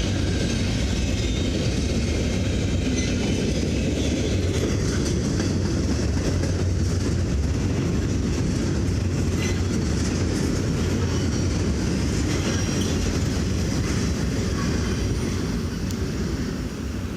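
Norfolk Southern freight train cars rolling past on the rails: a steady rumble with wheel clatter, easing off slightly near the end.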